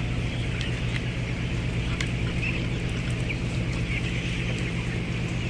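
A flock of young broiler chickens chirping and peeping over the steady low hum of the chicken house's ventilation fans.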